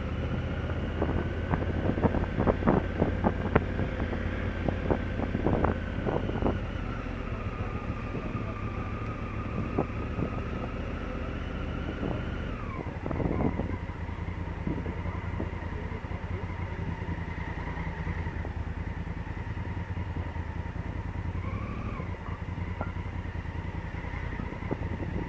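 Honda Africa Twin CRF1000L's parallel-twin engine running at low city speed, with a high steady whine over the engine note that drops in pitch about halfway through. Sharp knocks, the loudest sounds, come scattered through the first several seconds.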